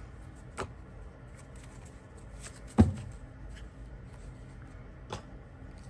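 Tarot and oracle cards being handled and laid down: a few light clicks, with one sharper tap a little before halfway through.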